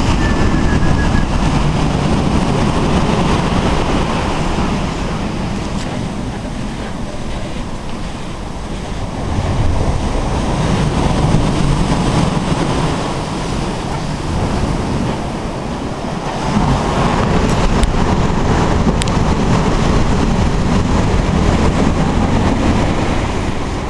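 Surf breaking on a boulder and pebble beach, the noise swelling and easing as waves surge in, with wind buffeting the microphone.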